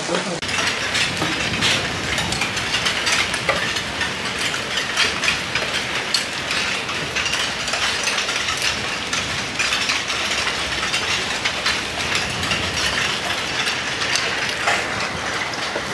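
Hailstorm: a dense, continuous rattle of many hailstones striking, mixed with the hiss of heavy rain.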